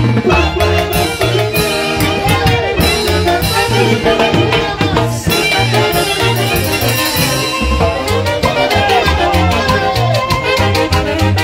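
Live Peruvian huayno orchestra playing, with saxophones carrying the melody over a drum kit and a steady repeating bass beat.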